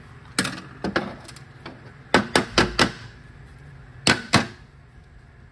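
Cast aluminium AB60 valve body parts and a hand tool knocking and clinking as they are handled on a metal bench. A few single knocks, a quick run of four about two seconds in, and two more near the end.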